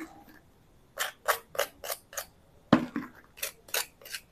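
Crisp deep-fried wheat-flour pastry shell of an egg chop crunching in short crackles, about three a second, as a knife cuts through it, with one louder knock past the middle. The crackle is the sign of a crust still crisp well after frying.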